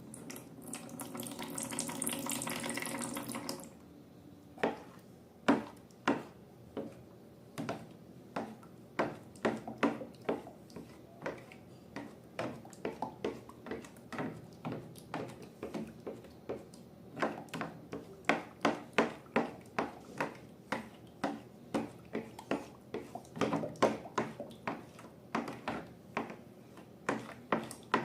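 Liquid pouring for about three and a half seconds. It is followed by slime being squeezed and mixed, making a long run of short, wet clicks and pops at roughly two a second.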